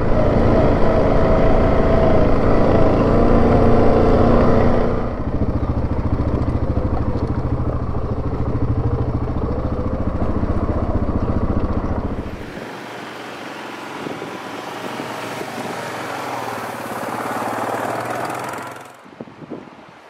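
A 2017 Yamaha Grizzly 700 ATV's single-cylinder engine runs under way along the trail and eases off about five seconds in. It keeps running lower for several seconds more, then stops. A steady rushing noise follows and cuts off abruptly near the end.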